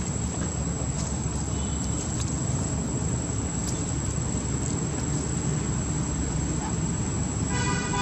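Steady outdoor background noise, mostly a low rumble, with a thin high-pitched whine held steady throughout. A brief pitched tone sounds near the end.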